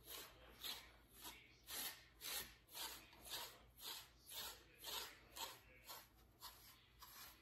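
American Akita panting faintly in an even rhythm, about two breaths a second.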